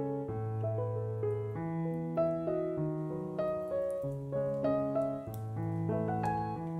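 Background piano music: a gentle melody over held bass notes.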